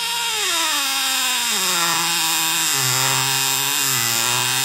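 Cordless driver running a screw into a plastic tool housing, the screw squeaking as it goes in. The squeal falls in pitch over the first couple of seconds as the screw takes up, then holds roughly steady with small steps.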